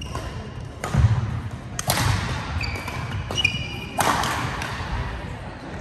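Badminton rally: rackets striking the shuttlecock three times, about one and two seconds apart. Between strikes there are short high shoe squeaks on the court floor and low thuds of players' footfalls.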